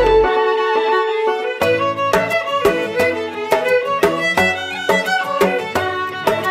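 Background music track led by a violin over a steady beat. The bass and beat drop out briefly near the start and come back about a second and a half in.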